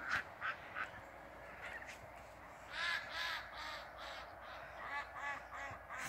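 Birds calling in quick runs of short, harsh calls, about three a second: at the start, again around the middle, and near the end.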